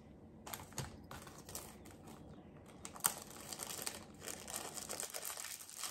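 Plastic jewelry packaging crinkling and rustling as it is handled, with a quick run of small clicks and ticks; it stops just before the end.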